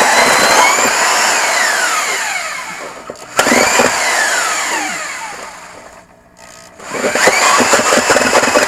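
Portable band saw (Portaband) cutting through a steel-belted radial car tire, its motor whine sliding down in pitch as it slows, then starting up again twice, about 3 s and 7 s in. The cut is not smooth; a rattling chatter runs under the whine in the last stretch.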